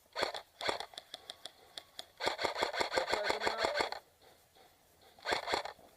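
Airsoft guns firing: a few single shots, then a rapid full-auto string lasting nearly two seconds, and another short burst near the end.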